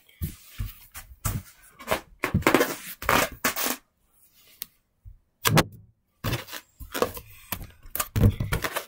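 Irregular knocks, thumps and rustles from plush toys and other objects being handled close to the microphone, with a lull about four to five seconds in.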